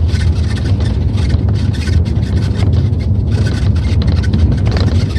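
Pickup truck driving, a steady low rumble of engine and road noise, with irregular crackling from loose styrofoam in the load shifting and rubbing as the truck moves.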